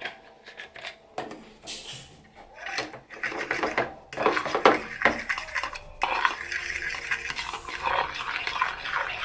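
A metal fork stirring a thick barbecue sauce marinade in a plastic bowl, clicking and scraping against the bowl. It starts as a few separate clicks and turns into quick, continuous stirring from about three seconds in.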